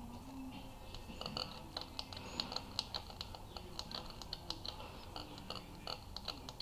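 Faint, irregular light metal clicks, about four a second starting about a second in, from a steel feeler gauge being slid back and forth in the valve lash gap under a rocker arm of a Honda B18C1 DOHC head while the screw-type adjuster is set to the clearance.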